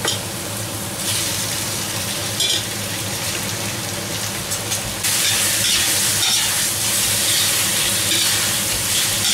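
Vegetables and pieces of oxtail sizzling in hot oil and fat in a kazan, stirred with a metal spatula. The sizzle gets louder about a second in and again about five seconds in.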